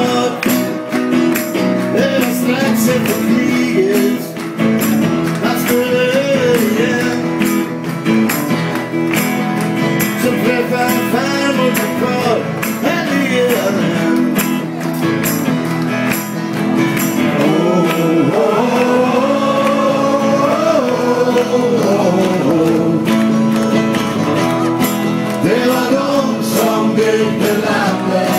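Live band playing a song: men singing together over strummed acoustic guitars, with a steady percussive beat.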